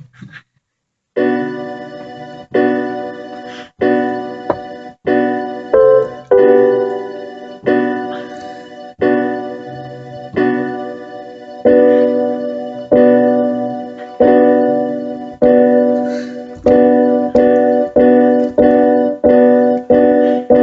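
Music: a piano-like keyboard playing repeated chords, each struck and left to fade. It stops for about a second of silence near the start, then the chords come at a steady pace and crowd closer together near the end.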